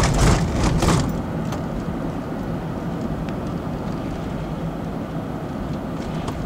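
Steady low rumble of a car's engine and road noise heard from inside the cabin while crawling in slow traffic, with a few short clicks in the first second.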